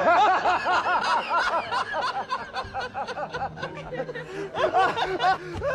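High-pitched snickering laughter: a rapid run of short rising-and-falling 'hehe' notes, louder again near the end.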